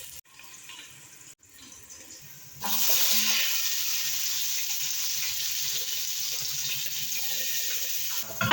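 Water running steadily from a tap into a sink, starting suddenly about a third of the way in and cutting off just before the end; before it, only faint low sounds.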